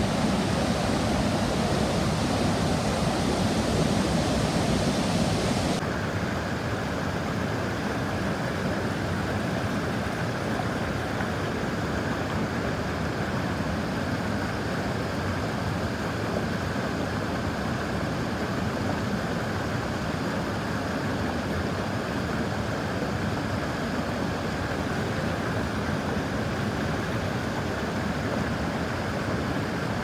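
Creek water rushing over rocky rapids below a waterfall, a steady rushing noise. About six seconds in the sound shifts abruptly to a slightly quieter, duller rush.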